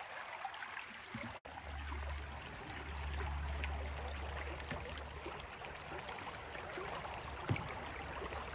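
Creek water running steadily over shallow riffles. A low rumble rises under it from about a second and a half in and fades out around five seconds.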